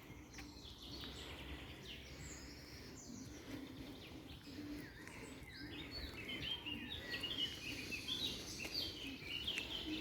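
Several small songbirds chirping and singing in quick, overlapping phrases, growing busier in the second half, over a steady outdoor background hum.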